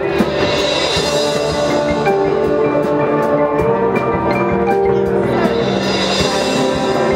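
High school marching band playing in held chords, with the front ensemble's marimbas and other mallet percussion. The band swells up about a second in and again near the end.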